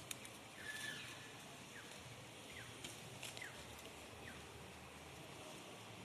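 Faint, short squeaky chirps from an animal, about five of them spaced roughly a second apart, each a quick slide in pitch, with a few light rustles and clicks.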